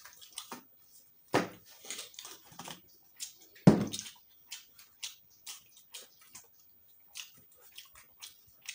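Close-up eating sounds: chewing and lip smacking with many short clicks as food is eaten by hand. Two louder knocks sound against the table, about one and a half and three and a half seconds in.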